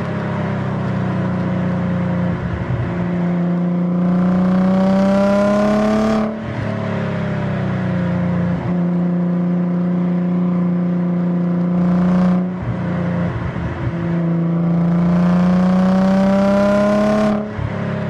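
Audi RS4's engine accelerating through the gears. The pitch climbs steadily for about six seconds at a time and drops sharply at each upshift, three times: about six, twelve and seventeen seconds in.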